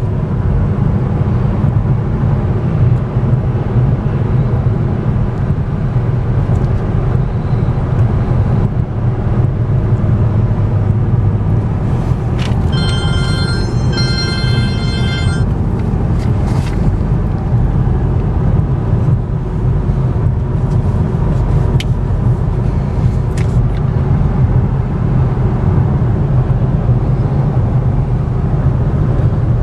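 Steady low road and tyre noise inside the cabin of a 2014 Cadillac ELR driving along. About halfway through, a high electronic chime sounds twice in quick succession.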